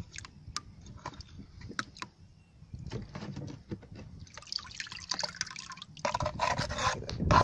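Muddy water and silt pouring and dripping out of a tipped money box into a tub of water: scattered drips and small splashes at first, then two heavier spells of pouring and splashing in the second half.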